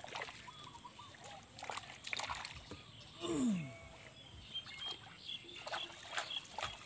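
Shallow muddy water splashing and sloshing in short irregular bursts as a bamboo-slat fish trap is worked and lifted out of a rice-paddy puddle. About three seconds in, a short vocal sound falling in pitch is the loudest thing.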